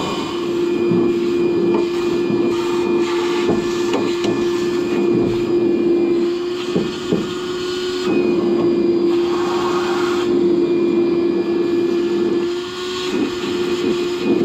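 Small handheld vacuum running steadily with a whine and suction hiss, sucking trash out of a grain drill's grass seeder box, with a couple of clicks of debris about seven seconds in.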